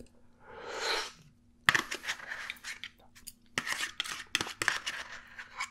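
Close-miked eating of soft baby food. A slurp as a forkful goes into the mouth is followed by wet chewing and mouth clicks, mixed with a metal fork scraping a small plastic tray.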